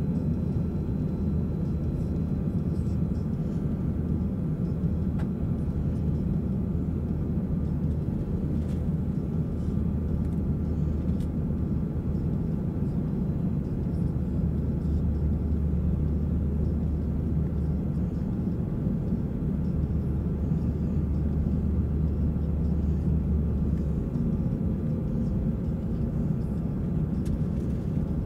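Steady cabin noise of an airliner on approach to land: engine and airflow rumble heard from inside the cabin. A deep hum beneath it drops away near the end.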